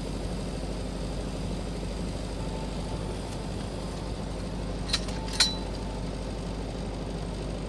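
Steady hum of welding equipment running, with two sharp metallic clinks about five seconds in, the second louder and ringing briefly.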